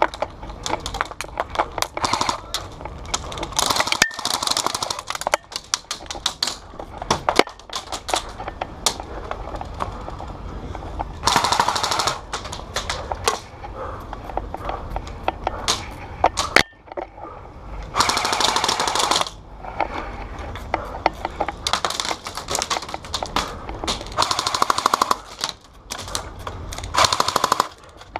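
Airsoft guns firing: scattered sharp single shots throughout, and about four rapid full-auto bursts lasting a second or two each.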